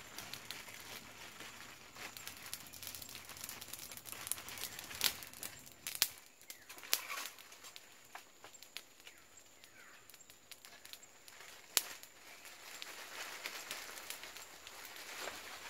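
A plastic bag crinkling and rustling as it is handled, with scattered sharp clicks and snaps, the loudest about 5, 6 and 12 seconds in.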